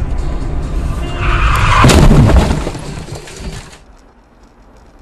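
Dash-camera audio from inside a moving car: steady road and engine rumble, then a loud crash about a second in that peaks near two seconds and dies away. Near the end the sound drops to a low, quiet hum.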